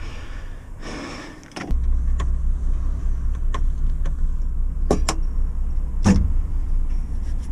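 A steady low hum that switches on suddenly about two seconds in, with a few sharp clicks and knocks over it.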